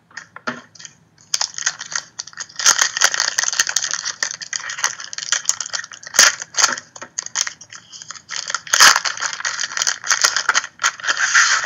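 Foil wrapper of a trading card pack crinkling and tearing as it is torn open by hand: a dense crackling that starts about a second in and goes on in bursts.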